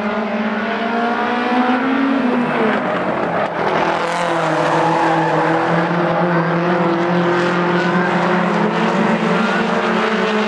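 A pack of Mk1 VW Golf stock cars racing on a dirt oval, several engines running at high revs over one another. One engine dips briefly in pitch about three seconds in.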